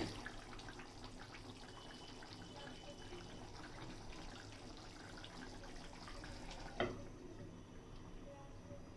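Chicken and potato curry simmering in a pot, faint bubbling and popping, with a single sharp knock about seven seconds in.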